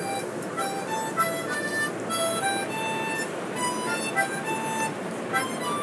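Harmonica playing a melody of short held single notes, one after another, over the steady rumble of the subway car.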